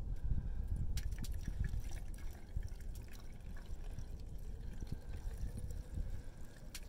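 Fuel pouring from a spout-nozzled gas can into a Stihl chainsaw's tank, a soft trickle with a few light clicks.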